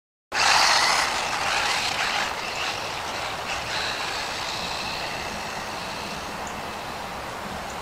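DEERC 300e 1/18-scale brushless RC monster truck driving at speed, its electric motor whining over tyre noise; loudest about half a second in, then fading as it pulls away.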